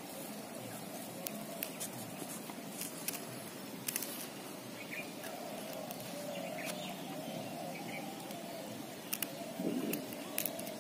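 Rural outdoor ambience by a pond: a steady background hiss with faint bird chirps and scattered small clicks.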